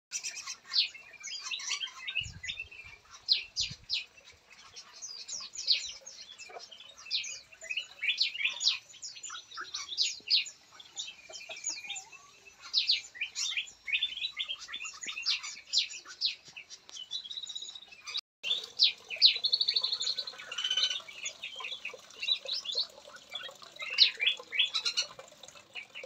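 Many small songbirds chirping and calling together, quick sharp high calls overlapping one another. The sound drops out for an instant about eighteen seconds in.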